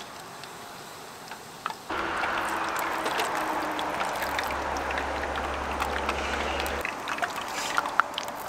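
Tortilla wedges frying in hot oil in a small camp-stove pot: the sizzling starts suddenly about two seconds in as they go into the oil, then carries on as a steady frying hiss with crackles, along with light clicks of metal tongs.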